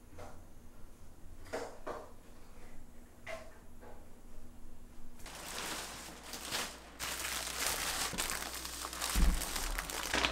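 Thin plastic shopping bag and plastic produce wrapping rustling and crinkling as groceries are lifted out of the bag, starting about halfway in, with a dull thump near the end. Before that, only a few faint soft sounds.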